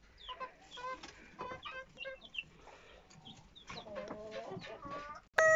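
Chickens clucking quietly, with scattered short calls. A loud rooster call breaks in suddenly at the very end.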